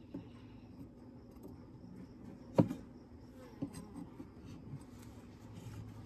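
Honeybees humming faintly around an open horizontal hive, with one sharp wooden knock about halfway through and a few lighter clicks as a metal hive tool pries a wooden frame loose.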